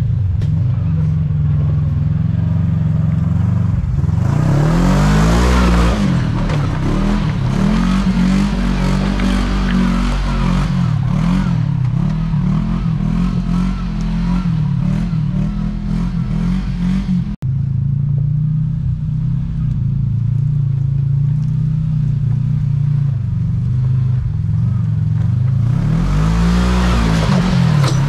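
Kawasaki KRX 1000 side-by-side's parallel-twin engine running and revving up and down as it crawls over rock ledges, with strong rev swells about five seconds in and again near the end.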